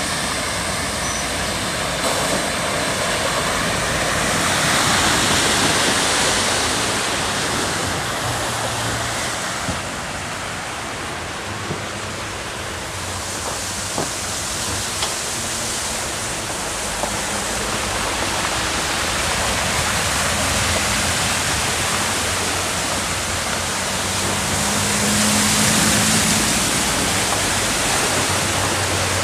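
Floodwater rushing steadily, swelling louder a few times.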